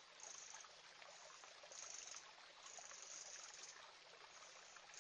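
Near silence: a faint background bed with a high chirring that comes and goes about once a second.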